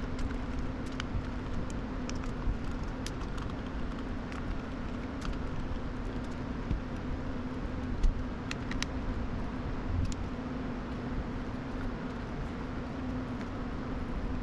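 Steady low hum with scattered light clicks and taps, the sound of small tools and parts being handled while a graphics card is worked on.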